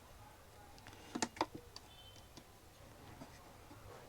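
A few faint plastic clicks, two close together about a second in: the soundbar's front grille being eased off its lock-type clips.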